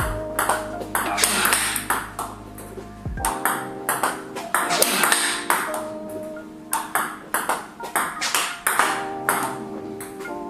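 A table tennis rally of forehand drives against backspin, heard as a quick run of sharp clicks, about two a second: the ball striking the bats, including one faced with Tibhar Hybrid K3FX rubber, and bouncing on the table. Background music plays under it.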